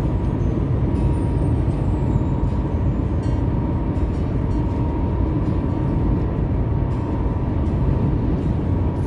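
Steady road and engine noise heard from inside a car's cabin while cruising on a highway, with a faint steady high tone running through it.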